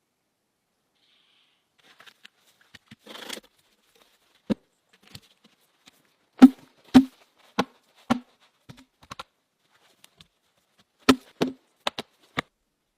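About a dozen irregular, sharp, hollow knocks of blows on wood, the loudest in a cluster in the middle and another near the end, with a short rustle before them.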